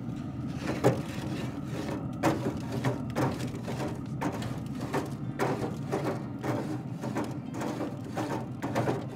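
Steel grate of a Traeger pellet grill being scrubbed clean with a hand-held grill-cleaning tool: a series of irregular scraping strokes, about one or two a second, over a steady low hum.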